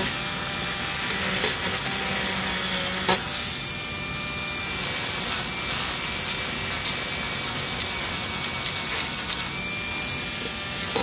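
Rotary tool with a wire cup brush running steadily, scrubbing the metal locomotive frame to clean the electrical contact where the trucks touch it. A sharp click about three seconds in and a few small ticks later on.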